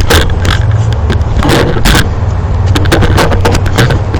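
A cheap plastic phone charger being broken apart: a run of irregular sharp clicks, knocks and scrapes of hard plastic, over a steady low rumble.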